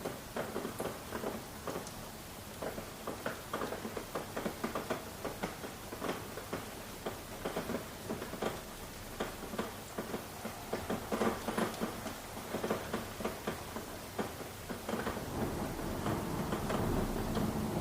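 Rain falling, with heavy drops pattering unevenly over a steady hiss. A low rumble builds near the end.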